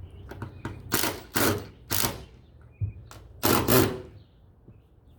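A series of about eight short, sharp mechanical rattles and scrapes, loudest near the middle and again about three and a half seconds in, from hand work on the roof-rail mounting.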